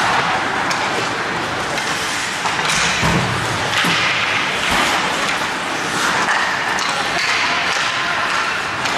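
Ice hockey play: skates scraping the ice over a steady hiss, with scattered sharp knocks and thuds from sticks, puck and boards.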